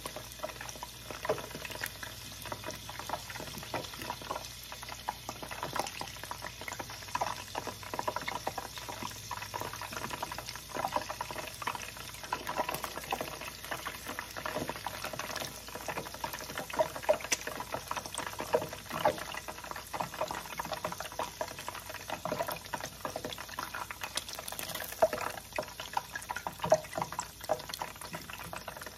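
Cream cheese rangoons deep-frying in a pan of hot oil: steady bubbling and sizzling, thick with small crackles and pops.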